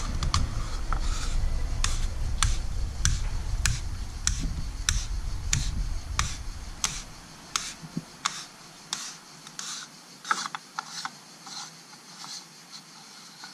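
Plastic coolant expansion tank cap clicking as it is turned by hand, in even light clicks a little under two a second that get fainter and less regular after about seven seconds. Low wind rumble on the microphone under the first half.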